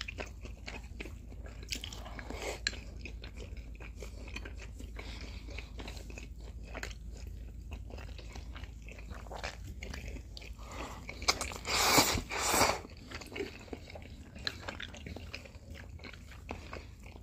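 Close-miked eating: chewing and biting of crispy-bottomed pan-fried potstickers and noodles, with many small wet smacks and crunches. A little past the middle comes a loud, hissing slurp of noodles in two pulses.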